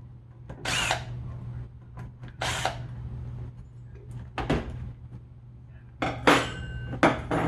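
About five sharp knocks and clatters of a hard part being handled and set down on a workbench, spaced a second or two apart, the loudest two near the end, over a steady low hum.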